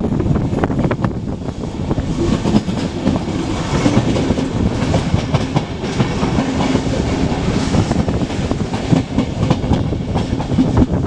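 Wheels of a passenger train of n-Wagen coaches running over the track and clattering irregularly over rail joints and points, heard from an open window of the moving train.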